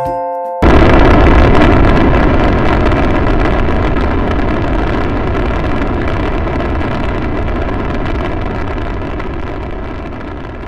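Cartoon rocket launch sound effect: after a short steady tone, a loud rocket engine noise starts suddenly about half a second in and slowly fades as the rocket climbs away.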